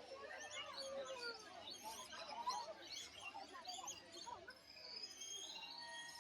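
A flock of rainbow lorikeets chattering, with many short, overlapping chirps and squeaks, fairly faint.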